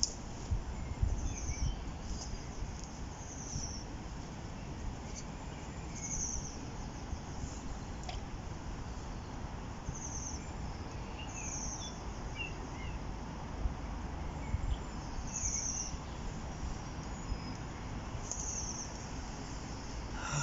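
Riverside outdoor ambience: a steady background rush with short, high-pitched chirps repeating every second or two.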